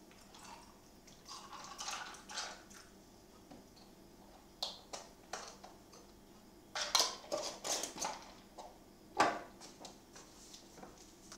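Juice pouring from a carton into a glass jar over ice for the first couple of seconds, then scattered knocks and clinks as the carton is set down on the counter and a plastic lid with a straw is fitted to the jar. There is a cluster of knocks about seven seconds in and a single louder knock about nine seconds in.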